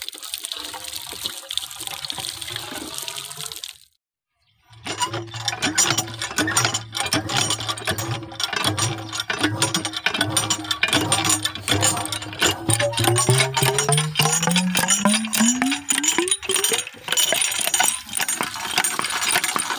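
Water splashing at a hand pump as it is primed. After a brief break the pump is worked: rapid metallic clanking and water gushing into a plastic bucket. Under it runs a steady low hum that rises in pitch near the end.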